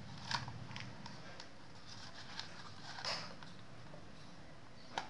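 A cardboard tube being handled while a battery is forced into it: scattered clicks and knocks, the sharpest about a third of a second in and again near the end, with a short rub about three seconds in.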